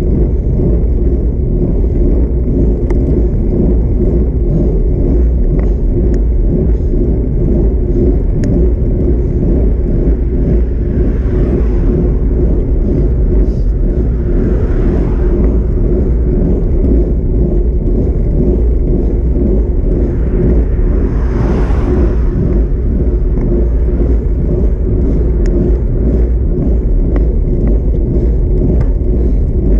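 Loud steady wind rumble on the microphone and road noise from a bicycle riding along a paved road. Two cars pass, one about halfway through and another about two-thirds of the way in.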